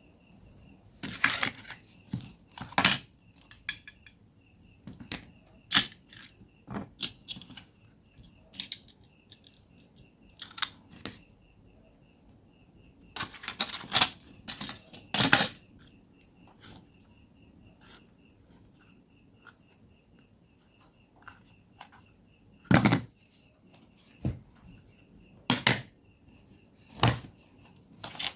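Irregular clicks, taps and short scrapes of a smartphone being taken apart by hand with small tools, its plastic and metal parts knocking on a work surface. The loudest sharp clicks come about a second in, near three seconds, around fifteen seconds and at about twenty-three seconds.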